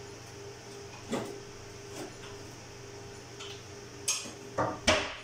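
Hard objects being handled on a workbench: a couple of single knocks, then a quick run of louder knocks and clatters near the end, over a steady low hum.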